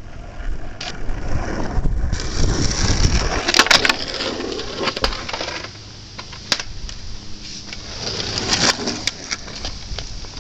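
Skateboard wheels rolling over rough asphalt, with sharp clacks of the board hitting the pavement several times.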